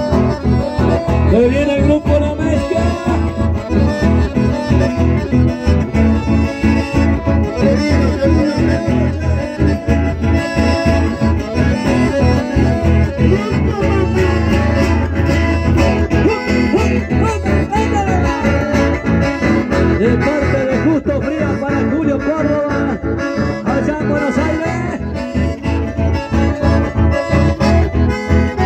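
Live chamamé dance music from a band playing through a PA: accordions and acoustic guitar over a steady dance beat, with a voice singing at times.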